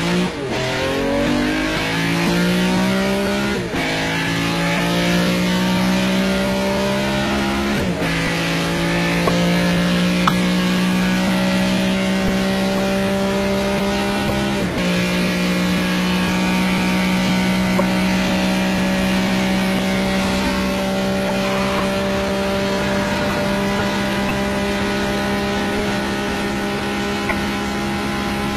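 Ferrari 275 GTB's V12 engine under hard acceleration. Its pitch climbs through each gear, with a gear change right at the start and upshifts about four, eight and fifteen seconds in, then holds steady at high speed.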